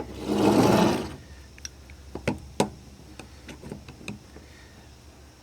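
Handling noise from a metal sonic screwdriver replica: a rustling swish about a second long, then a scatter of small sharp clicks and taps, two of them louder, about two and a half seconds in.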